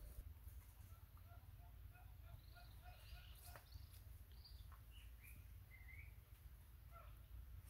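Faint birds calling outdoors: a quick run of short, evenly spaced low notes, then several higher chirps, over a low steady rumble.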